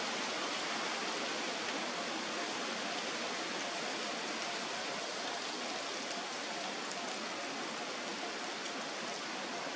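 A steady, even hiss at a constant level, with no separate sounds standing out.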